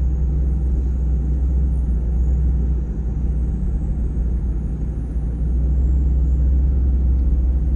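Car's engine and road noise heard from inside the moving car, a steady low rumble that eases a little about three seconds in and builds again about six seconds in.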